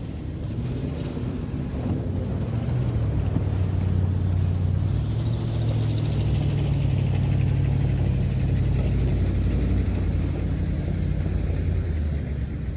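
Motorboat engine running steadily underway, growing louder over the first few seconds and then holding an even pitch.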